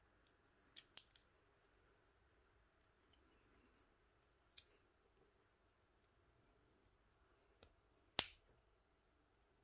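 Faint clicks and taps from handling a bare lithium-ion cell pack and its nickel connecting strips: three quick clicks about a second in, one more a little before the middle, and a sharp, louder click near the end.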